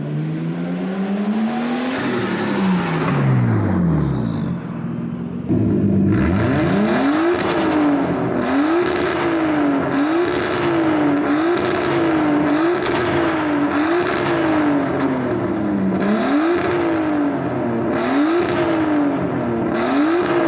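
Nissan RB25DET straight-six with a high-flow turbo and straight-pipe exhaust revving and lifting off, its blow-off valve blocked so the turbo flutters on each lift. Two long pulls are followed by a cut and then a steady run of quick rev-and-release cycles about every second and a half, each ending in a short sharp flutter burst.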